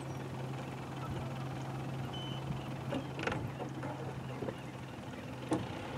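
Small boat's outboard motor idling with a steady low hum, with two sharp knocks, one about three seconds in and one near the end.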